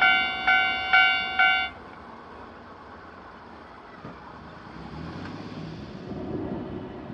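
Japanese level-crossing warning bell clanging 'kan-kan' about twice a second, then cutting off about one and a half seconds in as the crossing clears after a train. A steady outdoor hum follows, with a road vehicle's engine building near the end.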